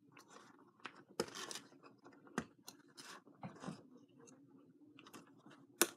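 Plastic LEGO bricks clicking as they are handled and pressed together, a few sharp separate clicks with soft rustling in between; the loudest click comes near the end.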